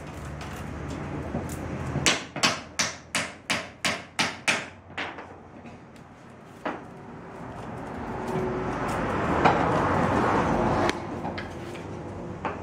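Willow basket being woven by hand: a run of about nine sharp knocks, roughly three a second, then a single knock. Then a few seconds of rising rustling and scraping from the willow rods that cuts off suddenly.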